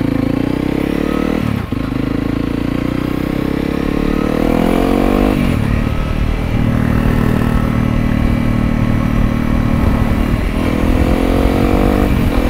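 Honda CRF300L single-cylinder engine through a Yoshimura RS-4 full exhaust, accelerating under open throttle. The revs climb, drop at an upshift about five seconds in, hold steady, then climb again and drop at another shift near the end.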